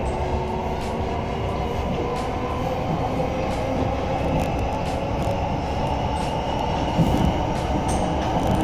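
SRT Red Line electric commuter train running, heard from inside the car: a steady rumble of the wheels on the track, with faint high tones above it.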